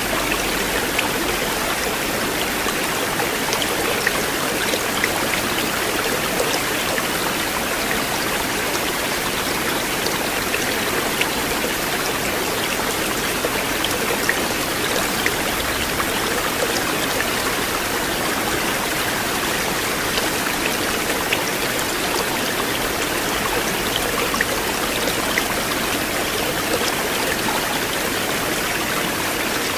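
River water flowing steadily: an even rushing babble with scattered small splashing ticks throughout.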